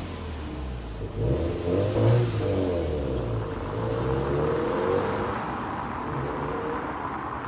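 Subaru WRX STI's turbocharged flat-four pulling away and accelerating: the engine note climbs in pitch, dips once as it shifts up, climbs again, then fades as the car drives off.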